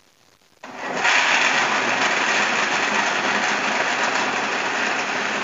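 Countertop blender switched on about half a second in, coming up to speed and then running steadily as it grinds roasted red ginger slices with water into a slurry.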